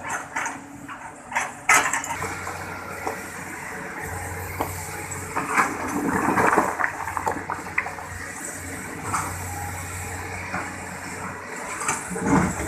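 Excavator digging into a river bank: its engine runs with a steady low hum, under scattered knocks and clatters from the bucket working earth and stones, with a wash of water and mud noise swelling about halfway through.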